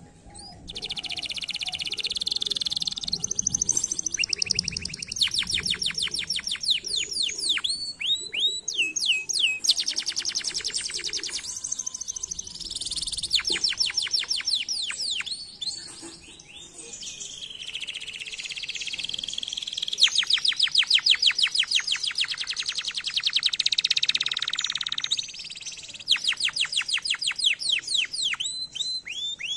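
Domestic canary singing a long song of fast trills. Each phrase is a rapid run of repeated high notes, and the phrases change from one to the next, with brief pauses between them.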